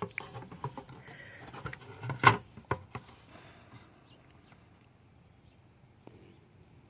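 A quick run of small clicks and taps from objects being handled, with one sharper click about two seconds in, then it fades to faint room noise.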